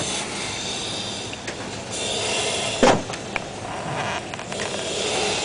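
Steady hissing noise inside a flashover training container, swelling and easing in patches, with a single sharp knock about three seconds in.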